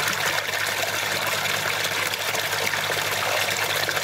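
Water from a pond pump at full speed, about 166 litres a minute, gushing out of a hose outlet and splashing into the pond, over a steady low hum. The splashing drops off sharply at the very end.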